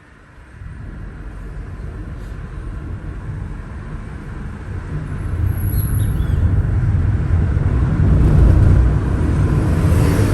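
Car driving: steady road and engine rumble that grows louder over the first eight seconds or so, then holds.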